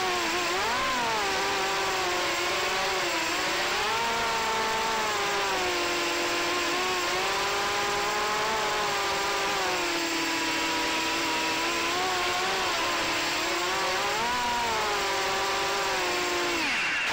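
FPV racing quadcopter's electric motors and propellers whining close up from the onboard camera, the pitch rising and falling with the throttle. The whine cuts off abruptly near the end as the quad sets down in the grass and the motors stop.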